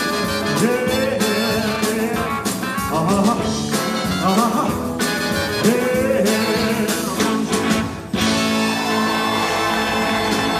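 Live rock-and-roll band with drums, bass, electric guitar, saxophone and horns playing under singing, then about eight seconds in a short break and a held final chord that rings on: the close of the song.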